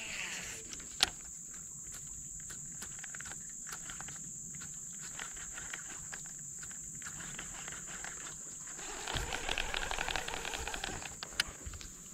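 Steady high-pitched insect drone, with a sharp click about a second in and a stretch of rustling and ticking near the end.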